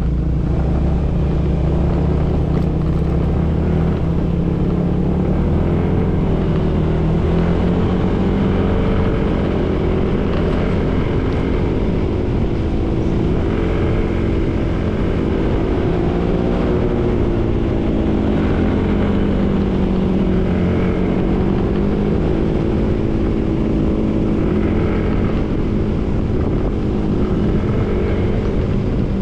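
Motorcycle engine running while riding along, its pitch slowly rising and falling with the throttle, over a steady low rumble of wind and road noise.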